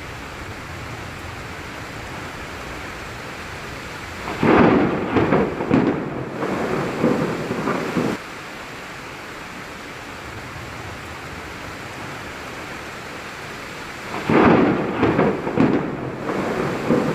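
Steady rain with two peals of thunder, one about four seconds in and another near the end, each a loud run of cracks and rumbles lasting three to four seconds.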